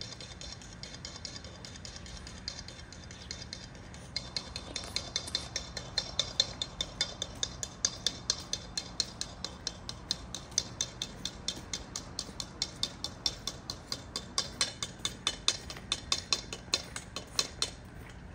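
Dry cat food rattling in a stainless steel feeding bowl as it is shaken or carried, a quick, even clicking about three or four times a second. It starts about four seconds in and stops near the end.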